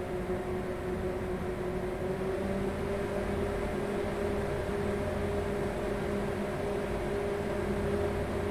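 Desktop PC cooling fans, the stock fans of an Alphacool Eisbaer 360 radiator together with NZXT LED case fans, whirring loudly as the machine ramps up from idle to load. The hum creeps up in pitch and loudness over the first few seconds, then holds steady. The fans are running near maximum because the case starves them of airflow.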